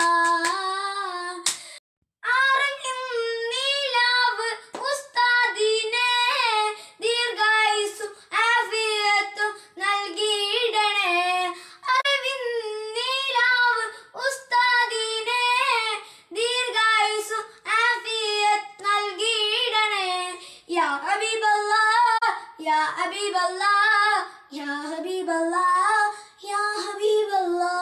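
A boy singing solo and unaccompanied, a Malayalam song in praise of an Usthad, in long ornamented phrases with a brief gap about two seconds in.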